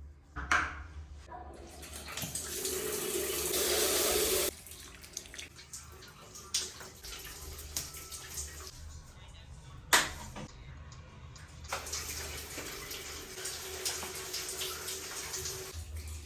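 Water running, as from a tap: it swells for a couple of seconds and stops abruptly, then runs again more softly later on. A few sharp knocks sound in between.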